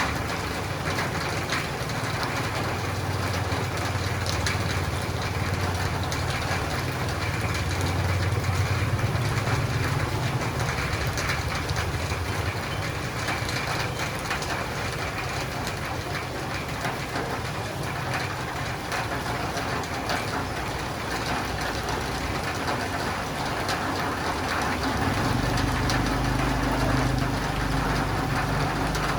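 Steady rain falling on a roof and running down windows, an even hiss. A low rumble under it swells twice, for several seconds a few seconds in and again near the end.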